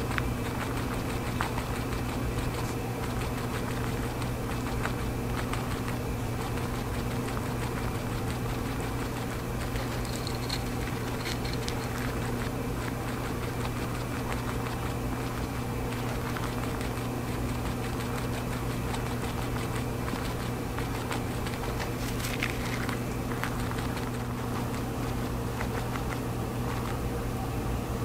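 Eastern cottontail rabbit chewing rolled oats: faint, soft crunching and ticks over a steady low mechanical hum.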